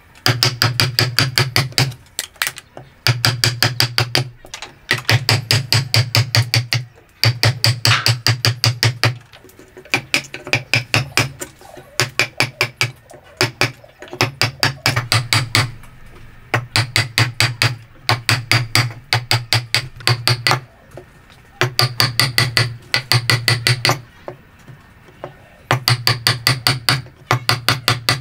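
A hammer drives a wood chisel into a block of wood in quick runs of blows, about eight a second. Each run lasts one to two seconds, with short pauses between runs.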